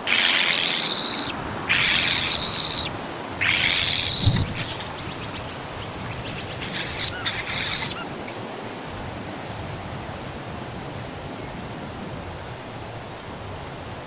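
Nestling birds giving raspy, hissing begging calls: three long calls about a second each, then a few shorter chirps about seven seconds in.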